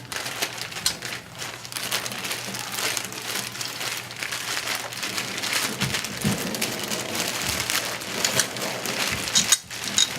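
Plastic packaging bag crinkling and rustling steadily as parts are unwrapped by hand.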